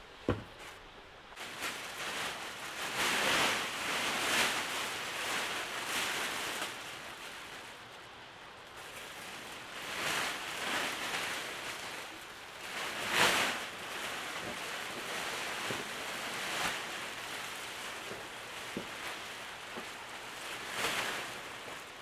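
Rain and wind noise, a steady hiss that swells and eases in gusts several times, with one short click right at the start.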